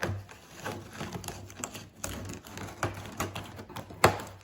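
Clicks, knocks and handling noises from a cardboard shipping box being handled, with one sharper knock about four seconds in.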